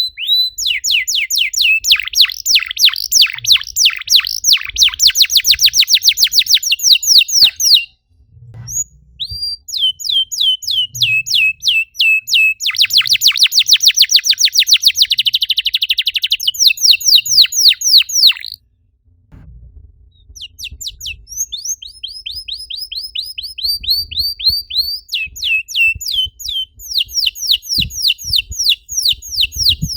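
Canary singing a long, loud song of rapid, repeated falling whistled notes and fast trills, with brief breaks about eight seconds in and around eighteen seconds.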